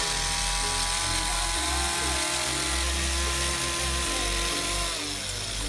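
Power hedge trimmer running steadily as its reciprocating blades cut through a dense shrub, a constant motor whine over buzzy cutting noise.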